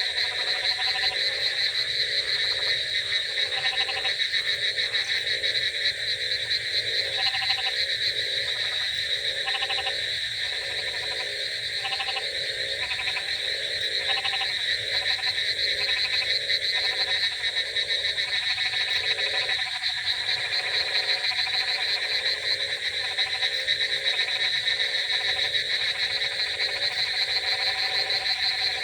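Dense night chorus of many frogs croaking, overlapping pulsed calls repeating without pause over a steady high-pitched trill.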